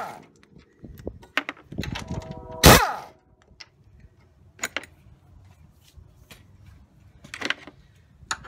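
Metal tools knocking and clanking on a car's strut tower as the strut-mount nuts are undone: a loud clank at the start, a louder clatter about two to three seconds in, then scattered light taps and a few ratchet-wrench clicks near the end.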